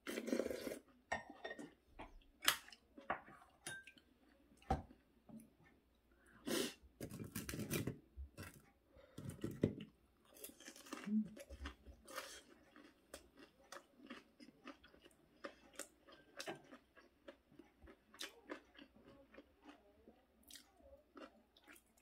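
Close-miked chewing of a mouthful of food, with irregular small clicks throughout and a few louder bursts of mouth noise.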